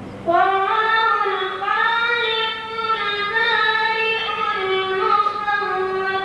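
A boy's voice chanting Quran recitation in the melodic tajweed style: one long, drawn-out phrase rising and falling in pitch, starting just after the opening. A faint steady hum runs underneath.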